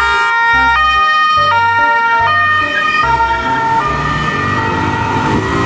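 Police car siren in two alternating tones, switching pitch about every three-quarters of a second; a little before the end a wailing siren that swoops up and down joins in.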